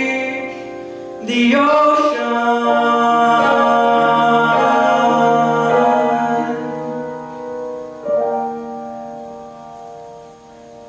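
Live song ending: sustained chords with a held sung note, a new chord struck about a second and a half in and a last one just after eight seconds, fading away at the close.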